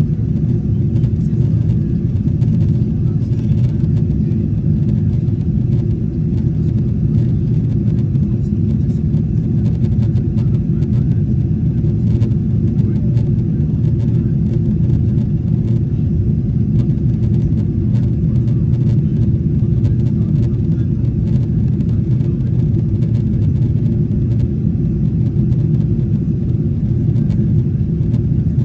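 Steady low rumble inside the cabin of a Boeing 777-300ER climbing after takeoff: its GE90-115B engines and the airflow over the fuselage, heard from a seat over the wing.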